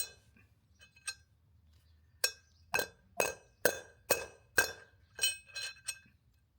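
Hammer driving the old bearing cone against the new front bearing cone to tap it into a caravan wheel hub: a run of sharp, ringing metal-on-metal strikes, a few scattered at first, then steady at about two a second.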